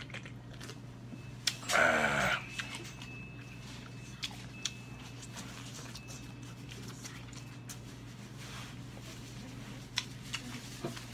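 A man makes one short, loud sound from his throat about two seconds in, right after a gulp of canned soda. The rest is a steady low hum with scattered faint clicks.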